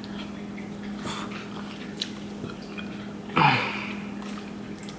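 Close-up eating sounds of a person chewing and sucking snow crab meat in garlic-butter sauce: small wet clicks and smacks, with one louder sound falling in pitch about three and a half seconds in, over a steady low hum.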